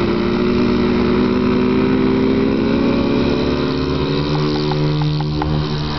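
Twin engines of a 90-inch radio-control P-38 model at high power on the takeoff roll, their pitch rising gradually over the first four seconds as the model gathers speed, then holding steady.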